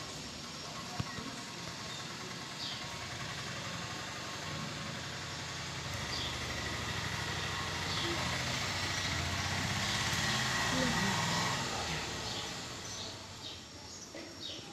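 A motor vehicle's engine over steady outdoor background noise. It swells to its loudest a little past the middle and fades away toward the end, with a few faint high chirps.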